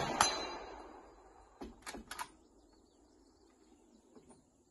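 The report of a Swedish M96 Mauser rifle in 6.5×55 echoing back off the range and dying away over about a second. About two seconds in come three quick clicks.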